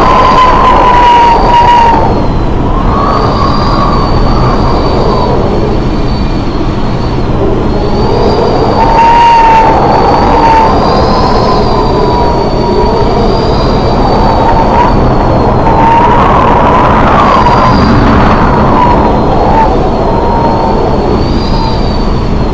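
Storm wind howling in a wavering, high whistle that rises and fades several times over a loud, steady roar of wind and breaking sea.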